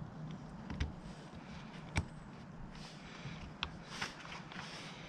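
A few light clicks and taps of metal motorbike brake pads and anti-squeal shims being handled and fitted together by hand, the sharpest about two seconds in, over a faint steady low hum.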